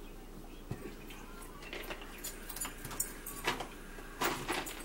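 Scattered small clicks, knocks and rustles of plastic drink bottles being handled and drunk from at a table, thicker in the second half.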